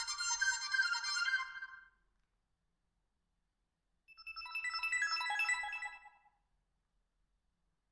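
Alcatel OT-808 mobile phone playing ringtone tunes through its small speaker, one after another as they are previewed. One tune fades out about two seconds in, and a second short tune plays for about two seconds in the middle, with silence between them.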